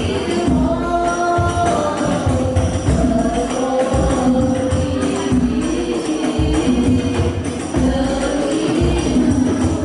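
Sholawat devotional song performed live and amplified: a sung melody over frame drums with a steady jingling of tambourine-like jingles.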